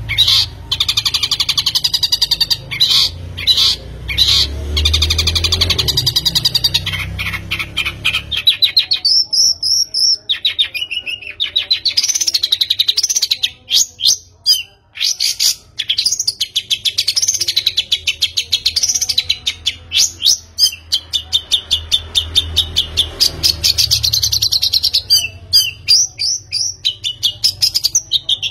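A bird singing in long, loud runs of rapid chirps and trills, with a low rumble underneath for the first eight seconds or so.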